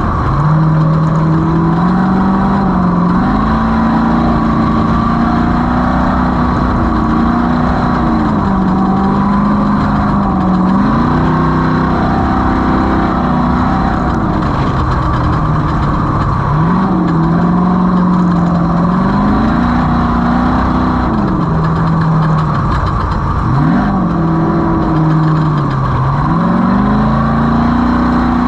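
Off-road race vehicle's engine running hard under constant load, its pitch climbing and dropping again and again every few seconds, over a steady loud rumble.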